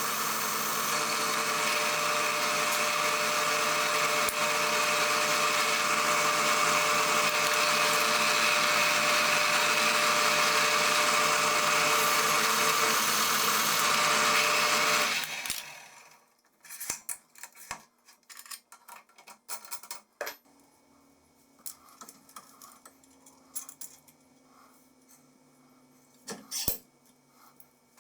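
An electric power tool runs steadily at speed, then shuts off and winds down quickly about fifteen seconds in. Light clicks and handling knocks follow.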